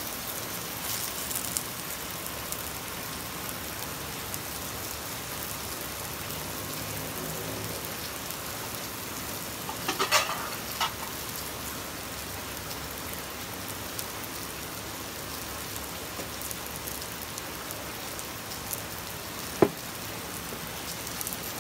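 Thinly sliced eggplant frying in oil in a pan, a steady sizzle. A brief cluster of clicks comes about halfway through, and a single sharp click near the end.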